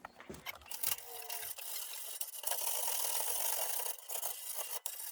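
Steady scrubbing: an abrasive scrub pad rubbed back and forth over the thin sheet metal of an old kerosene heater.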